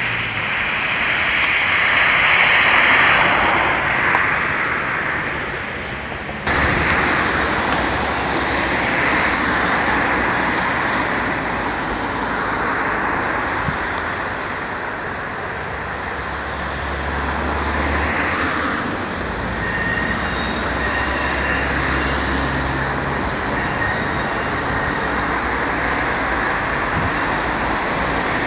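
Vintage trams running on street tracks, mixed with road traffic noise. The sound swells about two to three seconds in, then changes abruptly about six seconds in to a steadier mix of traffic and a slowly approaching tram.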